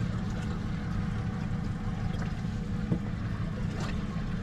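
Steady low hum of a fishing boat's outboard motor running at idle, with a couple of faint ticks near the end.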